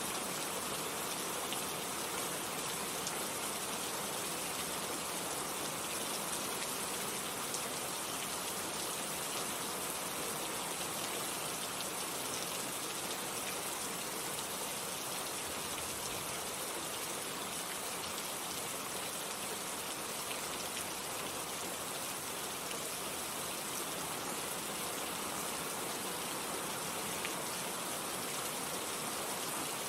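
Steady heavy rain falling, a dense even hiss with fine drop patter, unchanging throughout.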